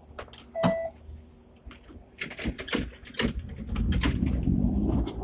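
A short beep from the Octopus card fare reader about half a second in, as a passenger taps out. Then a quick run of clicks and knocks, and from about four seconds the louder low rumble of Hong Kong tram No. 120 moving off.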